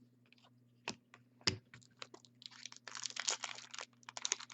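Foil wrapper of a hockey card pack being torn open and crinkled, after a few light clicks and taps of cards being handled.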